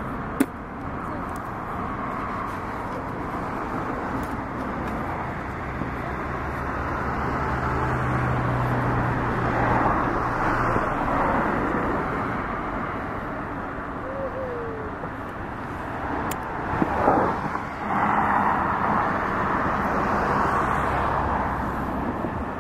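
Fireworks display heard from a distance over a steady background din like traffic, with a sharp crack about half a second in and a louder cluster of bangs about 17 seconds in.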